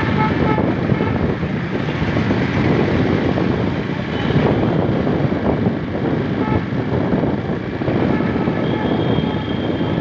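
Steady noise of riding a motorcycle in traffic: the bike's engine running and wind rushing over the microphone.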